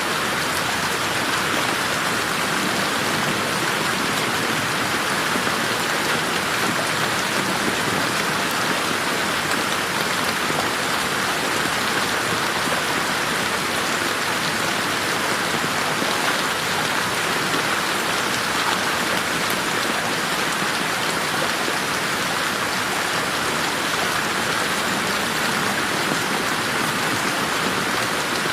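Steady rain falling in a garden, a dense even patter of drops on leaves and ground with no thunder.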